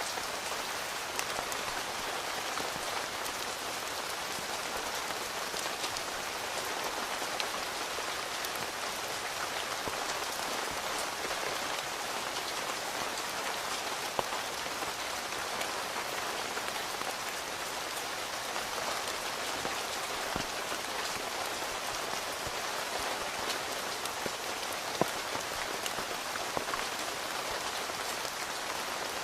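Steady rain falling on a tent, heard from inside it: an even hiss scattered with sharper individual drop taps, two louder ones about halfway through and near the end.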